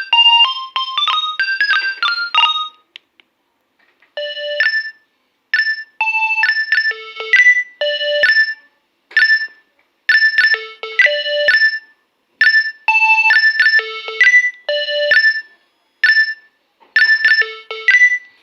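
Nokia 2300 mobile phone playing its built-in ringtones: a fast melody ends about three seconds in, and after a second's pause another tune of short, bright electronic notes starts, going in repeating phrases.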